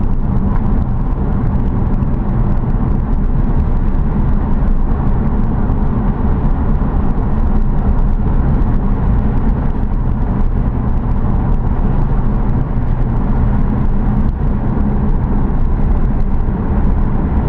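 Car driving steadily along a road: a continuous low rumble of engine and road noise.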